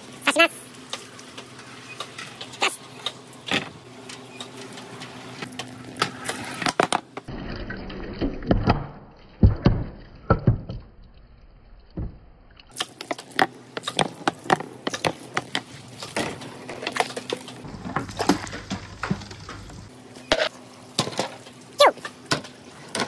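Marbles and billiard balls rolling along a bamboo-tube marble run, with frequent sharp clacks and knocks as they hit the bamboo and each other. About seven seconds in, a duller, deeper rolling rumble takes over for several seconds before the clacking returns.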